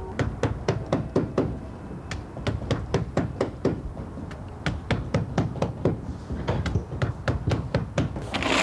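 Several hammers tapping in quick, irregular, overlapping strokes, several a second: roofers nailing down hinoki-bark roofing.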